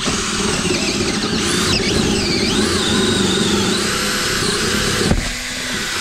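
Cordless drill running a hole saw through diamond-plate sheet metal: a steady motor hum under a high, wavering whine from the saw teeth on the metal. About five seconds in there is a click and the sound eases off as the saw breaks through.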